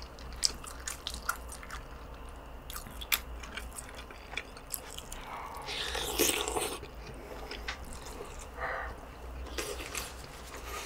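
Close-miked eating: short clicks of a wooden spoon against the stew pot and rice bowl, then a louder slurp of tuna kimchi stew with rice about six seconds in, followed by chewing.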